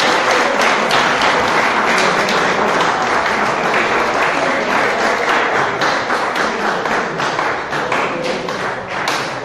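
Crowd applauding, with many individual hand claps heard, thinning slightly towards the end.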